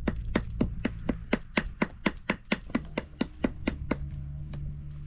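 A hand tool striking on a flat stone in rapid, even taps, about four a second, which slow and stop about four seconds in.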